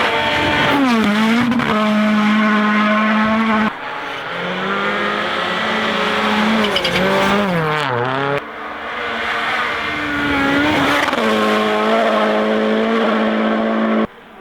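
Rally cars running flat out, engines holding a high steady pitch with brief dips and recoveries as the drivers lift or shift. The sound cuts off abruptly three times as one car's pass gives way to another's.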